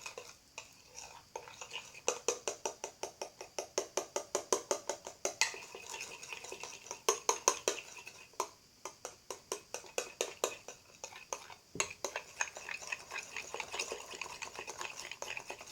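A utensil stirring clear glue and shaving foam in a bowl for slime, knocking and scraping against the bowl at about four strokes a second, with short pauses now and then.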